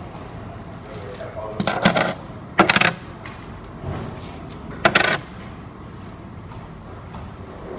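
Coins dropping into a coin-operated kiddie ride's coin mechanism, in three or four short metallic clattering bursts spread over about four seconds.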